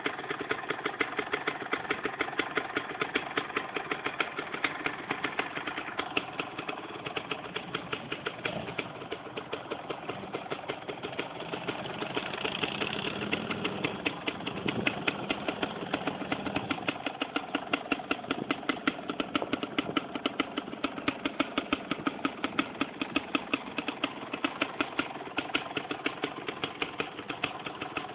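Suzuki RMX250's freshly rebuilt two-stroke single-cylinder engine idling steadily through its first heat cycle, a rapid pop-pop beat with some pops louder than others.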